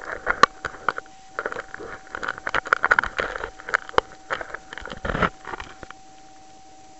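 Knocks, clicks and rubbing of hands handling a small camera and its mount as it is tilted up and set in place; this stops about six seconds in. A faint steady electronic whine from the camera runs underneath.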